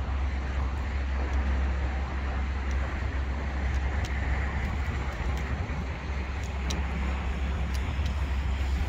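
Steady city traffic noise, a continuous low rumble of road vehicles, with wind rumbling on the microphone.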